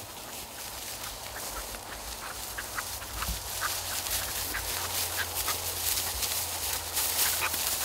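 Wind buffeting the microphone, with light, scattered rustling and crunching of dry grass and stubble underfoot.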